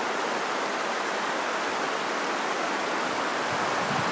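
Mississippi River floodwater pouring over a levee: a steady rushing of water.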